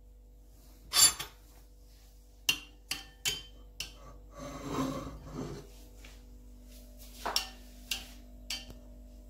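Metal spoon stirring soup in a ceramic bowl, tapping and scraping against the bowl in a series of sharp clinks. There is a louder knock about a second in and a stretch of scraping around the middle.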